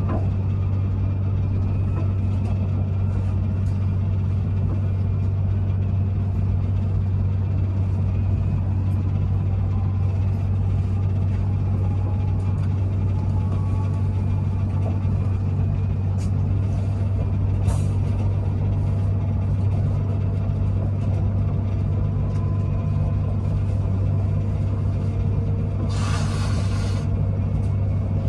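Passenger train running at speed, heard from inside the carriage: a steady low hum and rumble with faint whining tones above it. A brief hiss lasting about a second sounds near the end.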